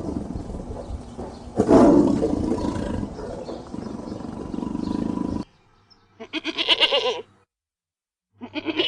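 A large animal's loud, rough call that swells again about a second and a half in and cuts off abruptly about five seconds in. It is followed by two short quavering bleats, typical of a goat, the second starting near the end.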